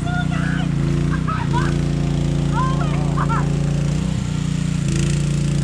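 Small petrol generator powering an electrofishing unit, running steadily, its hum changing pitch a couple of times. Faint voices under it.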